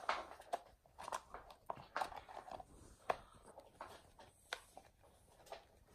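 Faint, irregular clicks and crackles of a plastic LOL Surprise Glam Glitter ball being handled and worked open by hand.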